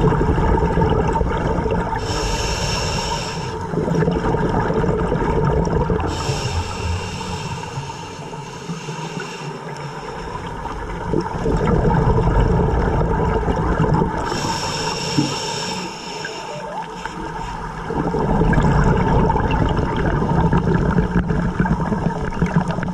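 Scuba diver breathing through a regulator underwater: three hissing inhalations, each followed by a longer, low, gurgling rumble of exhaled bubbles.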